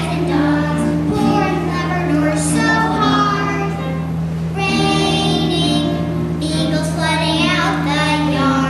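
Children singing a song together, with musical accompaniment and a steady low hum underneath.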